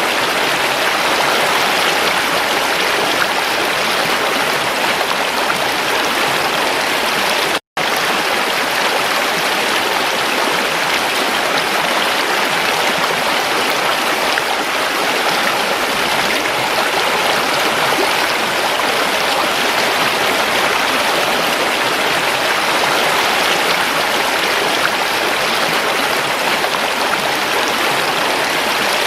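Running water of a creek, flowing steadily. The sound drops out to silence for a split second about seven and a half seconds in.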